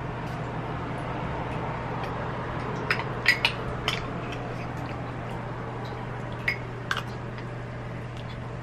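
Metal spoons clinking against cups and bowls while eating: a few sharp taps about three seconds in and two more near seven seconds, over a steady low hum.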